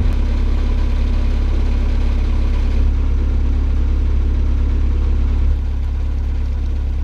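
Narrowboat's diesel engine running steadily under way, easing off a little about five and a half seconds in.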